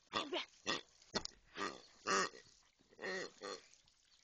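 Grunting toy pig oinking in short, irregular squeezes, about eight in a row, as a German Shepherd bites and chews it.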